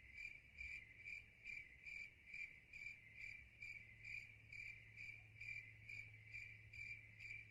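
Cricket chirping faintly and steadily, about two short chirps a second, over a low hum.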